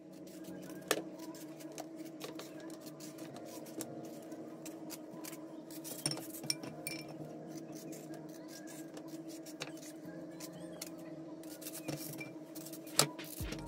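Kitchen knife peeling and cutting a mango: irregular light clicks and taps of the blade and of pieces set in a bowl, with a sharper knock about a second in and another near the end. A steady hum runs underneath.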